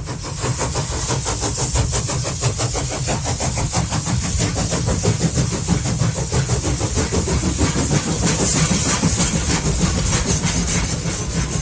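Train passing: a steady low rumble with a rapid, continuous clatter of wheels on the rails and a high hiss, building in the first second and then holding loud.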